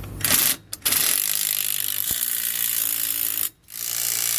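Cordless impact driver with a 9/16 socket hammering 3/8 bolts tight. It gives a short burst, then a long run, stops briefly, and starts again near the end.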